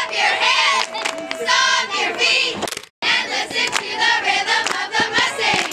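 Squad of teenage girl cheerleaders chanting a cheer together in rhythmic shouted syllables. The sound cuts out for a moment about three seconds in, then the chant resumes.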